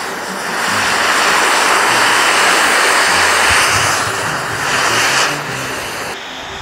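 Oxy-propylene cutting torch cutting through steel pipe: the steady hissing roar of the flame and cutting-oxygen jet. It dips briefly about four seconds in and eases off near the end.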